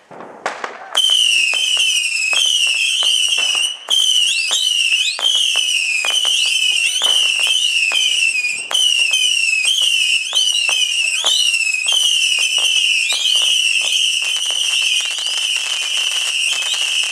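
Firework missile box (whistling missile battery) firing: after a brief fuse fizz, a rapid, continuous string of shrill whistling shots, about two or three a second, with sharp cracks and pops among them.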